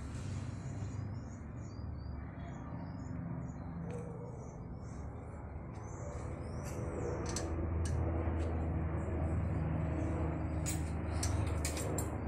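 Small birds chirping over a low, steady engine rumble, as of traffic or an idling vehicle, which grows louder about halfway through. A few sharp clicks come near the end.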